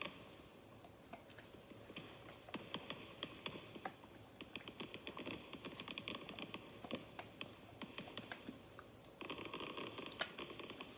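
Fireworks recording played back at very low volume: scattered faint crackles and pops with stretches of crackling hiss.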